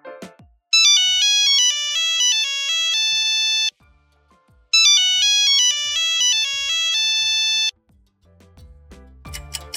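A mobile phone ringtone: a short, bright electronic melody of quick notes ending on a held note, played twice with a pause of about a second between. Faint background music begins near the end.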